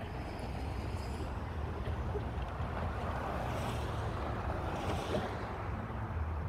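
Steady road traffic from cars passing on the roadway alongside, with wind rumbling on the microphone; a passing vehicle swells and fades around the middle.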